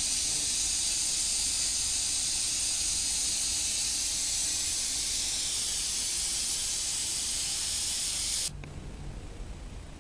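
Steady, loud hiss that cuts off abruptly about eight and a half seconds in, leaving a much quieter background.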